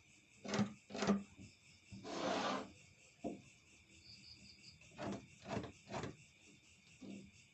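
Wooden parts knocking together several times, with one longer scraping stroke of wood on wood about two seconds in, over a steady chirring of crickets.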